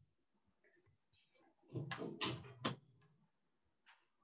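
Quiet room tone, with a short faint vocal sound from the narrator about two seconds in and a single light click near the end.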